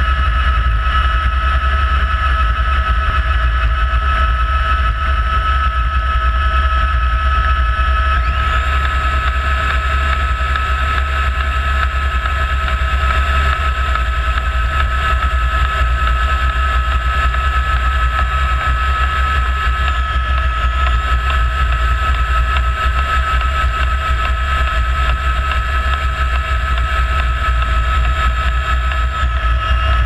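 Rescue helicopter's turbine engine and rotor running steadily while it hovers, with a deep rotor beat and a steady whine, heard close up from outside the fuselage. A second, higher whine joins about eight seconds in and stops shortly before the end.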